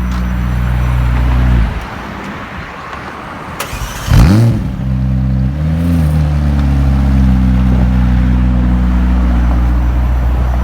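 Sports car engine idling, then dropping away; about four seconds in a sudden loud rev sweeps up and falls back, and after a short second blip the engine settles into a steady idle.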